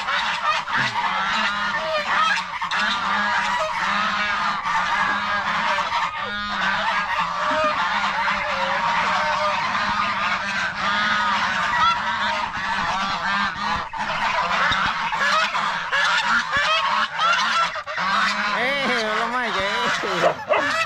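A flock of geese honking without a break, many calls overlapping.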